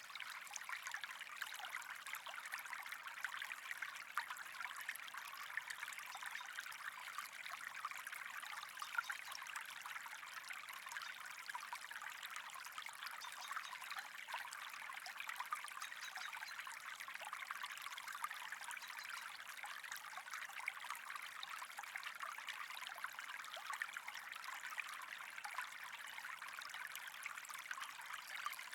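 Steady, faint trickling and bubbling water, a dense patter of tiny splashes that goes on without change.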